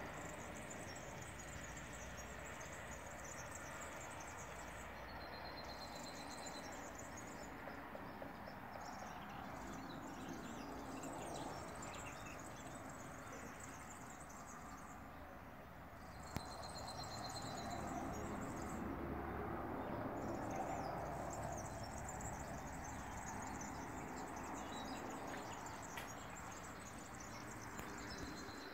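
Countryside ambience: a high insect chorus chirring in long stretches, breaking off and starting again several times, over a steady haze of background noise. A short, high, steady bird note sounds three times, spaced about eleven seconds apart.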